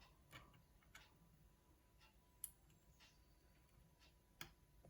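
Faint, scattered clicks of a lock pick working the pin tumblers of an Assa oval euro cylinder, about five sharp ticks a second or so apart, the clearest near the middle.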